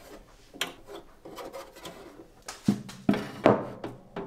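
Sheet-metal bottom cover of a 3D printer base being pulled open by hand, rubbing and scraping against the frame, with a sharp knock about half a second in and a few heavier knocks with a low ring near the end.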